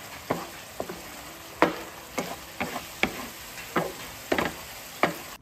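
Spatula scraping and knocking through a thick black sticky-rice (biko) mixture in a nonstick frying pan, over a steady sizzle as the mixture fries. The strokes come irregularly, about two a second.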